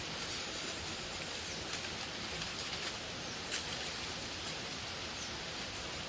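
Steady, even outdoor background hiss, with a few faint clicks and ticks over the first few seconds.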